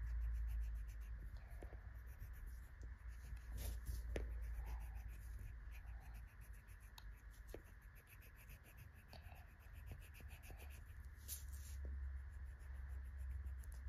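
Faint scratching and rubbing of a green marker tip on paper while colouring in.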